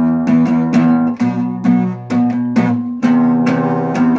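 Acoustic guitar strummed in a steady rhythm, about four strokes a second.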